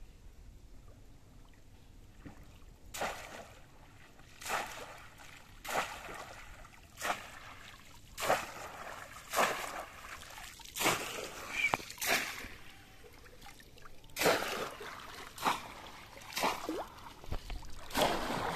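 Water splashing in short, sharp strokes as a bamboo plunge-basket fish trap is thrust down into shallow water, about one splash every second or so, starting a few seconds in.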